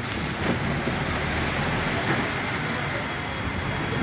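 Steady rushing outdoor noise, with no distinct events.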